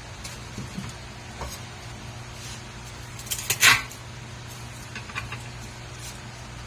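Kitchen prep handling: scattered small clicks and taps, with one louder short scraping rasp about three and a half seconds in, over a steady low hum.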